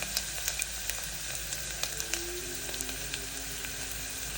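Onion frying in hot coconut oil in a pot, a steady sizzle with small crackles and pops as it starts to sauté.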